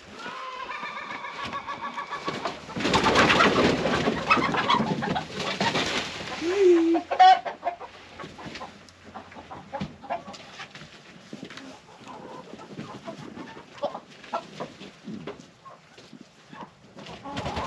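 Chickens clucking and calling inside a wooden coop, with a loud stretch of rattling and knocking a few seconds in as the coop door is opened, ending in a sharp knock; then quieter, scattered clucking.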